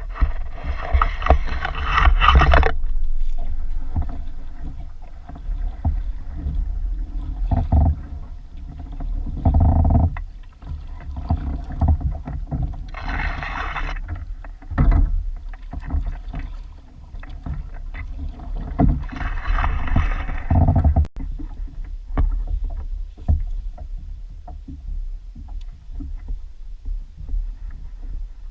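Fishing kayak on the water: a steady low rumble under several loud, rushing, splashing stretches, at the start, around ten seconds in, a little later, and again near twenty seconds, with small knocks between.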